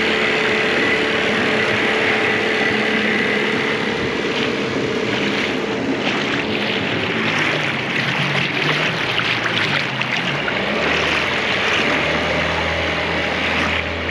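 A small boat's motor running steadily, with water rushing past the hull and wind buffeting the microphone.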